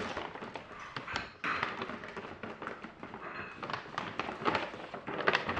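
Paper gift bag and tissue paper rustling and crinkling in irregular bursts as a toddler handles and digs through the bag.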